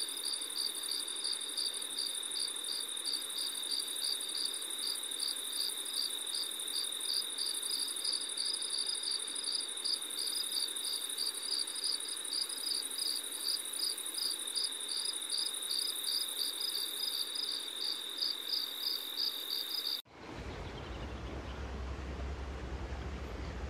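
Insects chirping in summer grassland: an even, fast pulsed chirp of about three pulses a second over a steady high-pitched buzz. It cuts off suddenly about twenty seconds in and gives way to a steady rushing noise with a low rumble.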